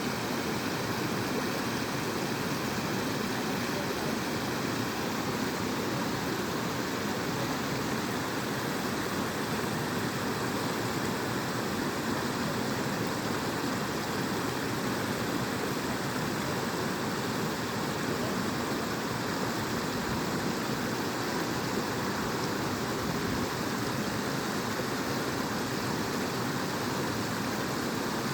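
Natural waterfall: water falling and splashing in a steady, unbroken rush.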